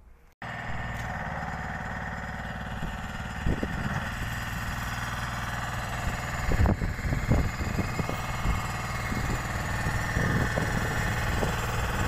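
A motor running steadily under a loud rushing noise, starting abruptly about half a second in, with irregular low buffeting surges from about three and a half seconds in.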